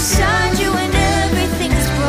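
Background music: a song with a singing voice over steady bass notes.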